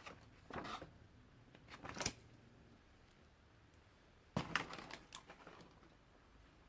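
Faint handling noises: a few soft rustles and clicks of objects being moved by hand, with the sharpest click about four and a half seconds in.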